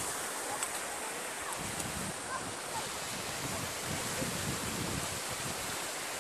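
Wind buffeting the phone microphone in low, irregular gusts over a steady rushing hiss.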